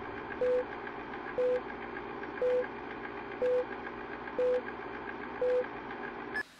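Film-leader countdown beeps: a short mid-pitched beep once a second, six times, over a steady crackling hiss with fast, faint ticking. The sound cuts off suddenly just before the end.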